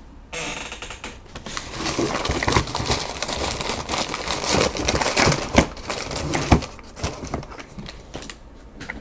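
Crumpled brown packing paper rustling and crackling as hands dig through it and pull it apart, with many sharp crinkles; it starts just after the beginning and dies down in the last second or two.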